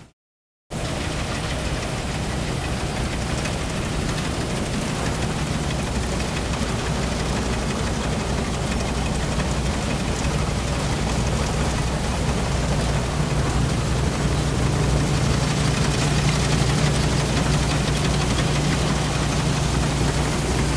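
Small rice combine harvester's engine running steadily while the machine cuts standing rice, a constant low drone with a broad mechanical hiss over it. The sound drops out for under a second at the start, and the engine note grows slightly stronger in the second half.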